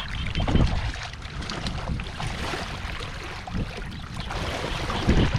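Splashing and sloshing of shallow muddy water as hands and legs work through it, with wind buffeting the microphone as a low rumble.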